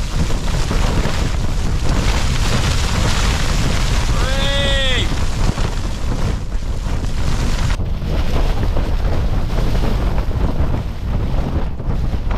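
Strong storm gusts battering a small backpacking tent, with a constant low rumble of wind on the microphone; the gusts are stronger than 80 km/h. About four seconds in, a short whine rises and falls, and near eight seconds the hiss in the upper range cuts off suddenly.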